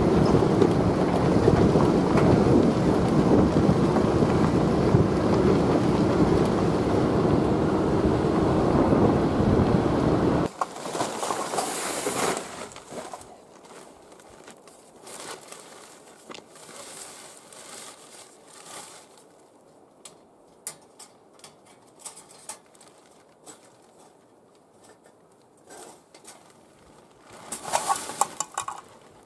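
Steady rumble and road noise of a vehicle driving a gravel dirt road, heard from inside the cab, cutting off abruptly about ten seconds in. Then a black plastic garbage bag crinkles as it is handled, in a burst just after the cut and again near the end, with faint rustles between.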